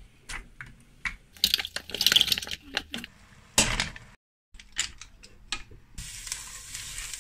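Kitchen clatter: irregular sharp clicks and clinks of cookware and utensils through the first four seconds. A few seconds later a steady hiss sets in as a block of butter melts and sizzles in a hot steel pot.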